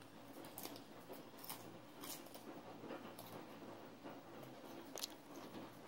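A toddler biting and chewing raw cucumber, faint crisp crunches scattered through.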